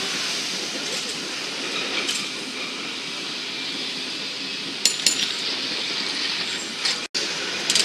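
San Francisco cable car rolling on its rails, a steady rumble and hiss with sharp metallic clinks and clanks about five seconds in and again near the end. The sound cuts out for an instant just after seven seconds.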